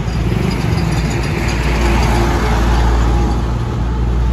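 Street traffic: a motor vehicle's engine running close by, swelling a little around the middle, over a steady low rumble.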